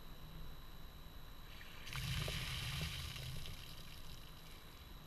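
Water poured from a white plastic bucket over a person's head and splashing down over him. It starts about two seconds in and tails off over the next couple of seconds.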